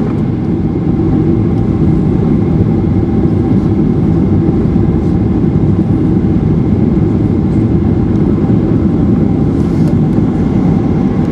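Steady cabin noise of a Boeing 737-800 airliner: an even rumble of engines and airflow with a steady whine running through it.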